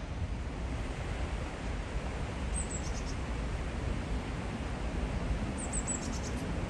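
Steady rush of the Rhine Falls' water mixed with low wind buffeting on the microphone, with a small bird giving two short runs of high chirps, about two and a half and six seconds in.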